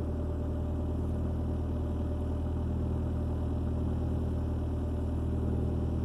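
2003 Ford Focus's four-cylinder engine idling steadily, heard from inside the cabin, while still warming up.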